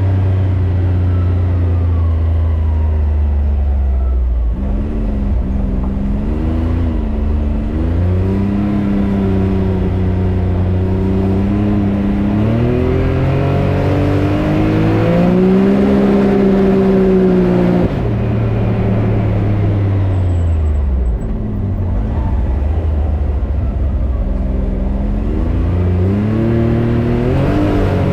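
Can-Am Maverick X3 Turbo RR side-by-side engine running under throttle, its pitch climbing and easing off in long sweeps. It drops sharply about two-thirds of the way through and winds back up near the end.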